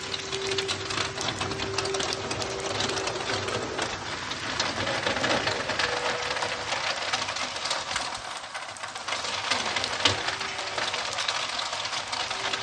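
Rain drum being played by rain and light hail: a dense, rapid patter of drops and small hailstones striking the drum, with a few of its notes ringing on and fading.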